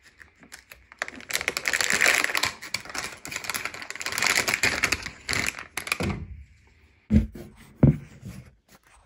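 Protective packaging being opened by hand: several seconds of rapid crinkling and crackling, then two short low thumps about a second apart near the end.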